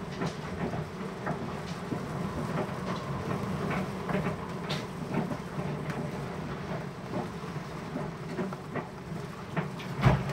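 Storm wind and rain on a sailboat, heard from inside the cabin: a steady low rumble with many small drops of rain and spray striking the window. A heavy thump near the end.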